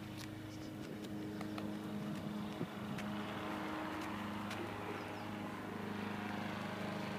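A steady engine drone with an even low hum that grows slightly louder, and a few faint clicks over it.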